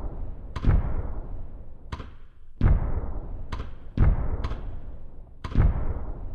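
Fireworks bursting in quick succession, about seven sudden bangs at irregular intervals, each fading away over about a second before the next.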